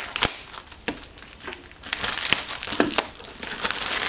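Plastic packaging crinkling and crackling as a motorcycle helmet intercom's retail box is unpacked by hand: a few scattered crackles, then denser crinkling from about halfway.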